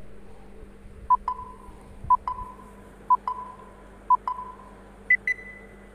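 Countdown timer sound effect: a short double beep once a second, four times, then a higher-pitched double beep marking the end of the count.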